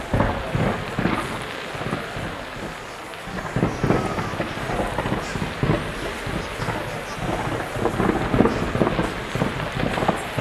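A dense fireworks barrage: many sharp bangs a second over a continuous crackling hiss.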